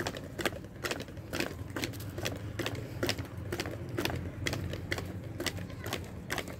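Irregular light clicks and taps, a few a second, over a low steady hum: handling noise as a kite is rigged and its line tied on.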